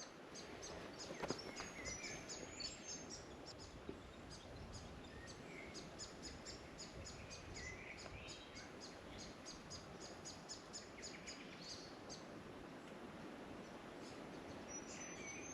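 Faint birdsong outdoors: a few short chirps over a steady, high ticking that repeats about three times a second.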